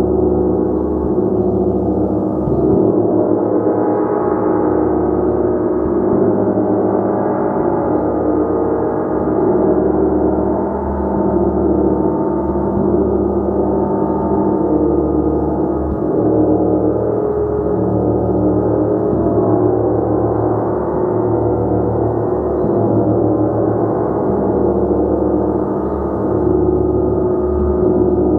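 Gong played continuously: a dense, sustained wash of many overlapping ringing tones that swells gently now and then without ever dying away.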